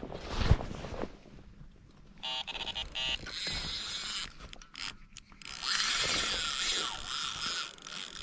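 A carp rod's fishing reel ratcheting and whirring in long rasping stretches as the rod is taken up from its rest, with a thump about half a second in.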